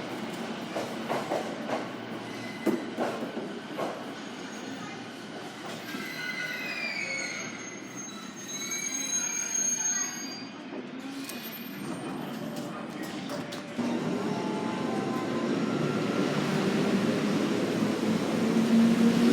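Electric train at a station: wheels clicking and knocking over the rails, then high squealing tones, and from about two-thirds of the way in a rising electric motor whine that grows louder as a train accelerates.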